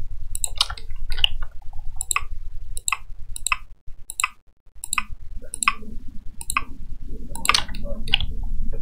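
Computer mouse clicking at a steady pace, about once every half second to second. Each click places a new vertex in Blender while Ctrl is held. A low steady hum runs underneath.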